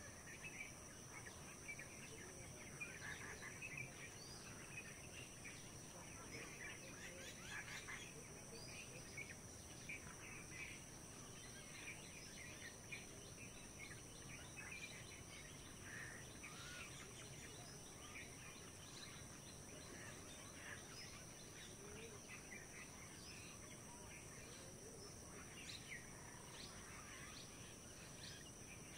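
Faint rural morning ambience: small birds chirping and twittering in short scattered calls, busier in the first ten seconds, over a steady hiss and a constant thin high tone.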